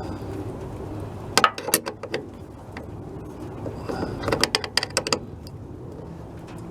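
Wrench working on a battery cable terminal clamp: two short runs of quick metallic clicks, about a second and a half in and again about four seconds in, as the terminal is tightened.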